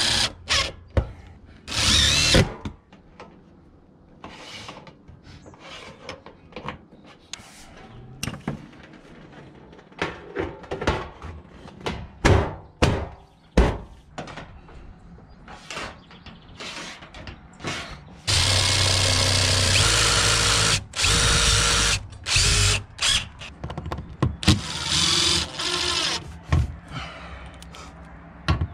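DeWalt 20V cordless impact driver driving screws through standing seam panel clips into the roof deck, in bursts: short ones near the start, a long run of about four seconds past the middle, and another near the end. Between them, short clicks and knocks from handling the metal panels and clips.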